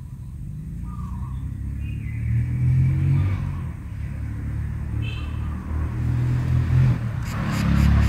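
A low, steady rumble that grows louder about two seconds in, with a few faint high chirps over it. Rhythmic music comes in near the end.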